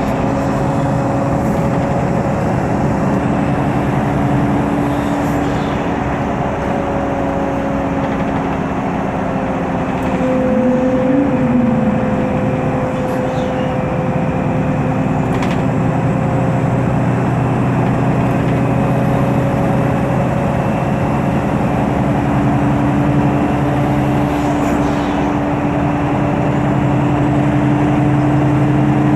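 MAN Lion's City CNG city bus running under way, heard on board: the steady drone of its MAN E2876 straight-six gas engine with a steady whine over it. About eleven seconds in, a short tone rises and falls.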